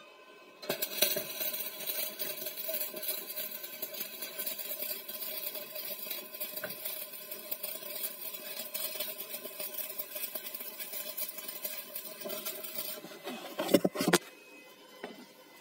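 Stick (manual metal arc) welding: the electrode strikes about a second in and the arc crackles steadily, with a steady buzzing tone underneath, for about twelve seconds. A few louder pops come near the end as the arc breaks off.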